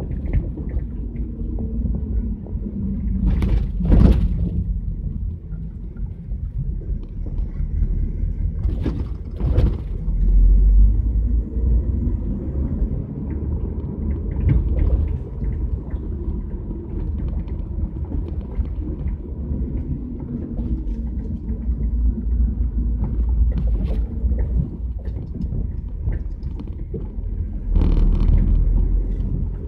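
Low engine and road rumble heard inside the cabin of a 1977 Chevrolet Camaro while it is driven, swelling louder a few times. A few brief knocks stand out over the rumble.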